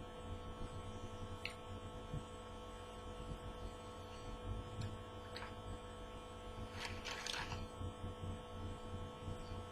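Steady electrical mains hum from the recording setup, with a few faint clicks and a brief rustle about seven seconds in.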